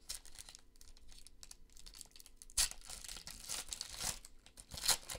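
Foil wrapper of a Donruss Optic basketball card pack being torn open and crinkled. After quiet handling, the loud tearing and crinkling starts about halfway in.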